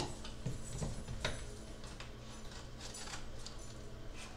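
Quiet kitchen room tone: a low steady hum with a few faint clicks and taps, about three in the first second and a half.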